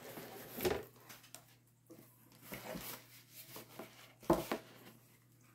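Cardboard box and its packaging being handled and opened: scattered scrapes, rustles and light knocks, the sharpest a little over four seconds in.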